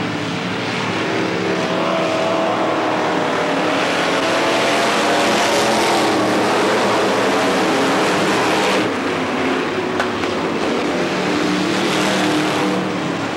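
Dirt late model race cars' V8 engines at full throttle as a pack of cars runs past, several engine notes overlapping and sliding up and down in pitch. It swells to its loudest around the middle, and the high end drops away suddenly about nine seconds in.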